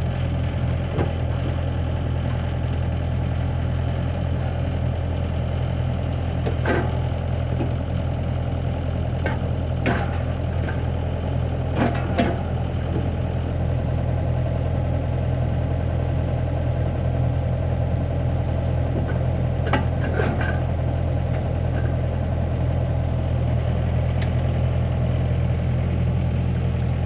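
A large engine running steadily at a constant speed, with a few sharp knocks about 7, 10, 12 and 20 seconds in.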